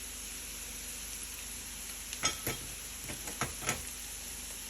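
Onion and garlic frying in butter in a pan, a steady sizzle, with a utensil stirring and scraping against the pan in a few quick knocks about halfway through.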